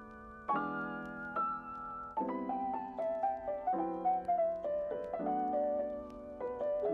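Background piano music: struck chords that change about every second and a half, under a simple melody.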